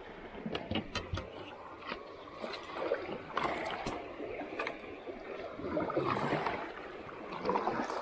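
A plastic sit-on-top kayak moving along a shallow river. Water swishes and splashes in swells every second or two, with a few sharp knocks near the start.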